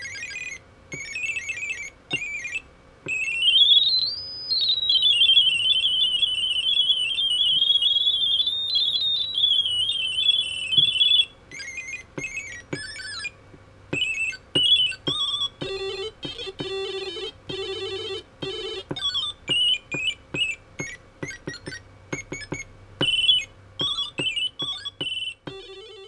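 High-pitched electronic beeping from a small speaker driven by an Arduino, its pitch changing as a pencil tip moves along a pencil-drawn graphite line. A tone rises about three seconds in and wavers for several seconds, then breaks into a long run of short beeps at shifting pitches.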